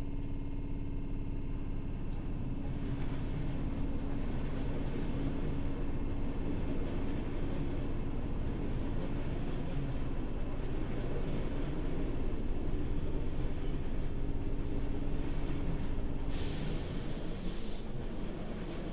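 Seibu 301 series resistance-controlled electric train running, heard from inside a motor car: the steady whine of the traction motors and gears over the rumble of the wheels on the rails. A brief hiss comes near the end.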